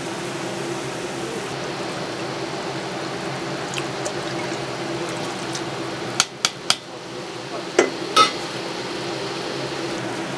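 Liquid being poured in a kitchen over a steady hum, then five sharp clinks of kitchenware between about six and eight seconds in.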